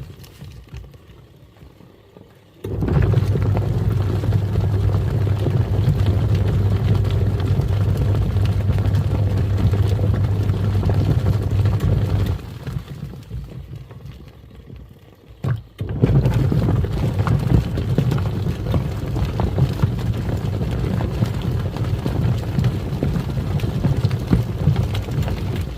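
Twin-tub washing machine's wash tub churning water and foam. The motor starts a few seconds in with a steady low hum, stops about halfway with a click during the lull, then runs again: the pause-and-restart of a wash cycle reversing its pulsator.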